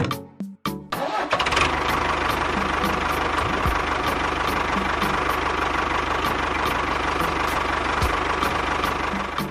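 A few sharp clicks, then an engine starts about a second in and keeps running steadily with a fast even beat, the sound of the mini tractor.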